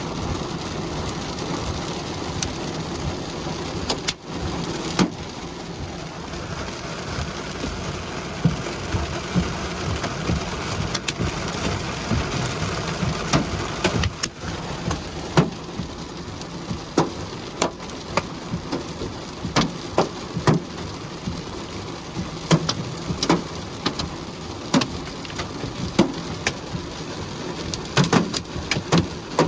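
Hail and heavy rain falling on a vehicle, heard from inside: a steady hiss of rain with irregular sharp knocks of hailstones striking the body and glass, more frequent in the second half.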